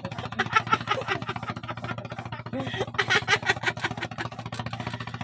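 A small engine running steadily with a rapid, even chugging beat, and a brief louder clatter about three seconds in.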